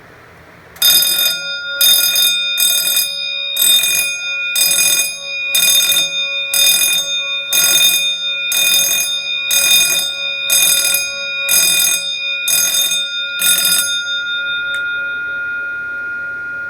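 Wheelock 6-inch fire alarm bell striking in march-time code, about one stroke a second, some fourteen strokes. This is the fire alarm system in alarm. The strokes stop near the end and the bell's tone rings on, fading.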